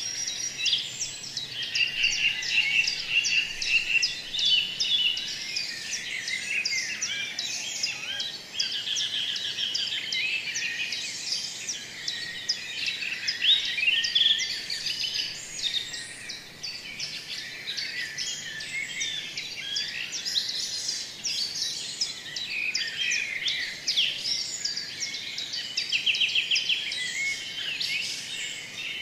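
Many small birds chirping and trilling together in a dense, continuous chorus.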